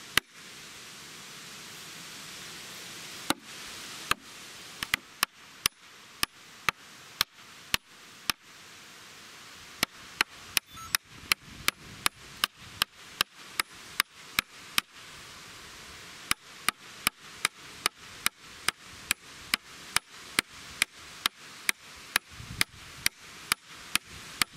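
Sharp, short knocks or clicks repeating over a steady hiss, about one a second at first and quickening to two or three a second in the second half.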